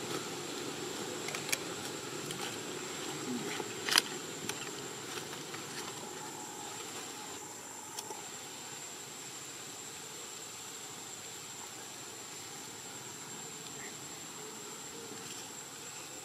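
Outdoor ambience: a steady high-pitched insect drone over a low background hum, with a few faint clicks and one sharp click about four seconds in.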